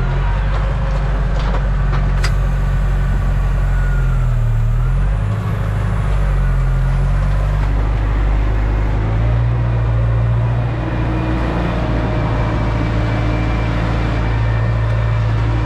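Tractor's diesel engine running, heard from inside the cab, its note dipping and recovering a few times in the first half and then running steadily.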